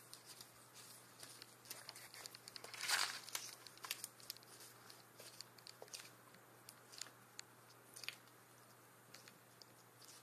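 Green iguana biting and chewing leafy salad greens: faint crisp crunches and clicks of leaves being torn and chewed, with one louder rustle of leaves about three seconds in, then sparser clicks as it chews with its head raised.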